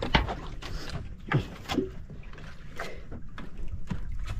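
Longline fishing gear being handled on a wooden outrigger boat: scattered sharp clicks and a few short falling squeaks as the line is pulled from its basin and worked over the side, over a low steady rumble.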